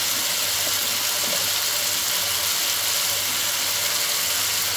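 Fish curry sizzling steadily in a frying pan, an even hiss with a low hum underneath.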